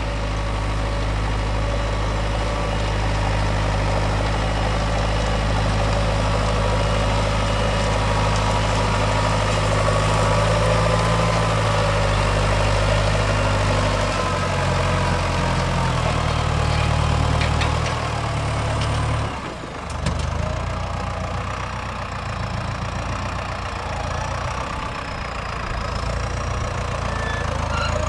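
Lamborghini R.4 110 tractor's diesel engine running steadily while ploughing. Its note changes about halfway through, and there is a brief drop in level a little after that.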